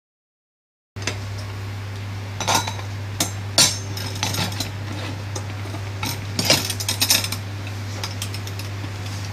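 Silent for about the first second, then a stainless steel tiffin carrier being handled: a series of sharp metal clicks and clinks from its latch and carrying handle, over a steady low hum.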